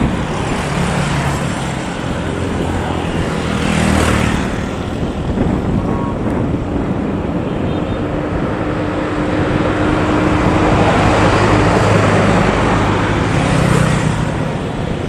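Engines of barges and small motor boats running as they travel along the canal: a steady drone that swells about four seconds in and again near the end.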